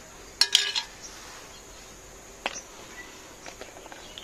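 Steel dinner plate clinking as rice is eaten from it by hand: a quick cluster of sharp metallic clinks about half a second in, another about two and a half seconds in, and a few faint taps near the end. Insects chirr steadily in the background.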